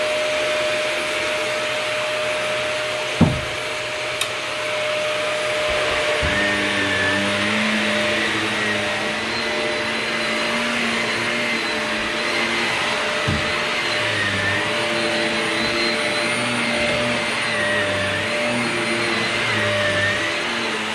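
Vacuum cleaner running steadily while vacuuming carpet, its motor hum wavering slightly in pitch. There is a sharp thump about three seconds in and a couple of faint clicks later.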